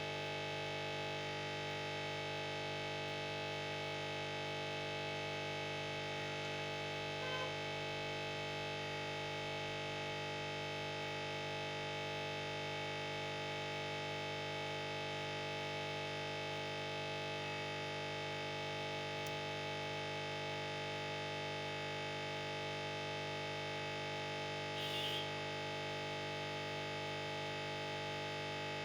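Steady electrical buzzing hum with many overtones, unchanging throughout, from a hot-air rework station heating the charging jack's solder to desolder it. There are two faint short blips, one about seven seconds in and one near the end.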